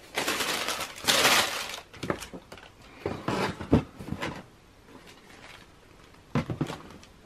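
Tissue paper rustling and crinkling for about two seconds, then a run of knocks and taps as a cardboard shoebox is handled and set down, the loudest knock about three and a half seconds in.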